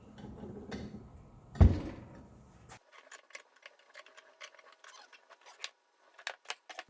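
Metal tools and parts being handled at a workbench: one heavy clunk about a second and a half in, then a run of light, irregular clicks and ticks.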